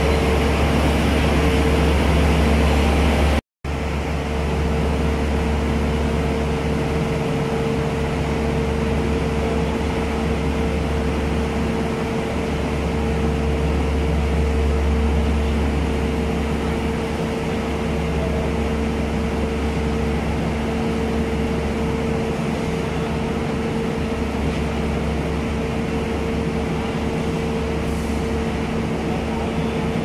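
Steady drone of idling diesel train engines, a low rumble with a constant hum, which drops out for a moment about three and a half seconds in.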